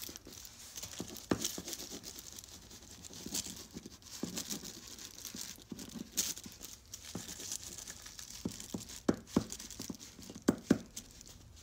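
Sakura Solid Marker, a solid oil-based paint stick, scraping across thin tissue paper in quick writing strokes, the paper crinkling under it, with a few sharp clicks scattered through.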